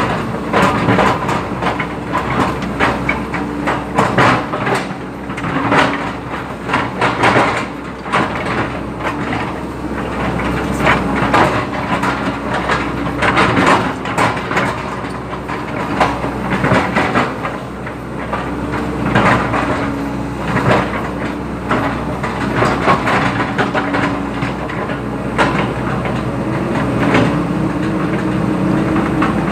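Excavator's diesel engine running under working load, its pitch rising and falling as it works, with frequent knocks and rattling clanks from the machine.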